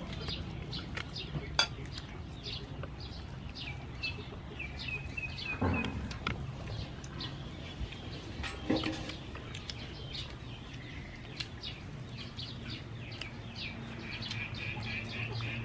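Small birds chirping: many quick, high, falling calls one after another, with two short fast trills, one near the middle and one near the end. A few brief knocks come in between.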